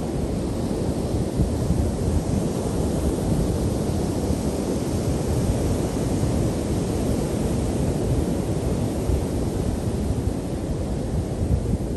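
Ocean surf breaking on a sandy beach, a steady rushing noise, with wind rumbling on the microphone.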